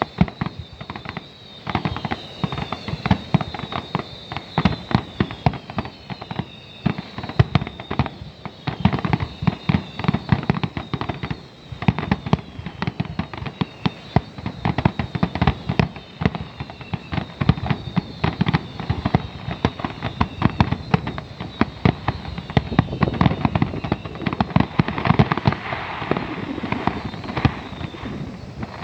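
Fireworks finale: a dense, unbroken barrage of shell bursts and bangs, with high whistles gliding down in pitch over the top.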